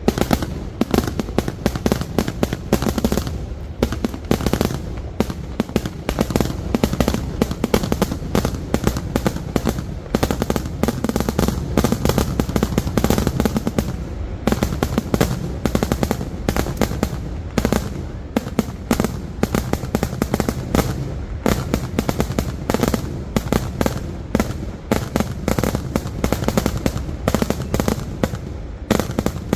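Kerala temple-festival fireworks (vedikettu): a dense, unbroken barrage of firecracker explosions, sharp cracks following one another many times a second over a steady low rumble.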